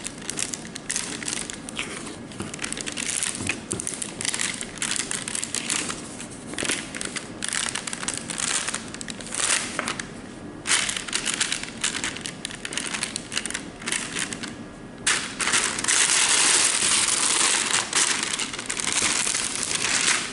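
Plastic protective film on a diamond-painting canvas crinkling and rustling in irregular bursts as it is peeled back from the sticky adhesive surface, with a denser, continuous crinkling for the last few seconds.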